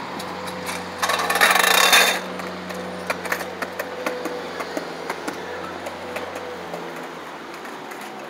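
Skateboard and kick scooter on a concrete sidewalk: a loud rush about a second in, then a run of sharp clacks and knocks as the wheels roll over the slab joints.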